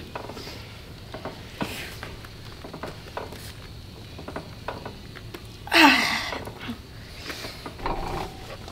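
Light clicks and knocks from a plate-loaded leg extension machine in use, with one loud short sound about six seconds in that drops in pitch.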